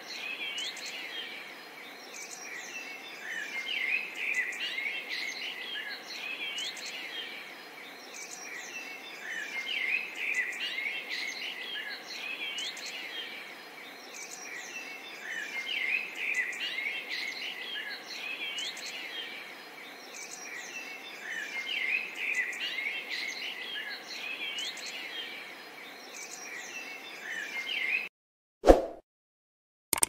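A chorus of small songbirds chirping and twittering over a steady faint background hiss, swelling about every six seconds. It cuts off suddenly near the end, followed by a short loud whoosh-like sound and a click.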